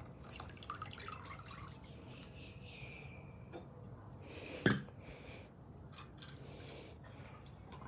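Faint drips and small splashes of water as a toy car is lifted out of a tub of ice water, with light handling clicks and one louder knock a little under five seconds in.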